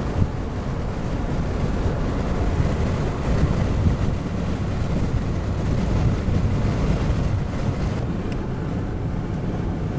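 Steady low rumble of wind and road noise inside a moving vehicle in a rainstorm.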